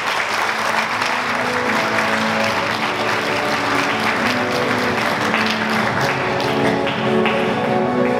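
Audience applauding over background music; the clapping thins out near the end while the music carries on.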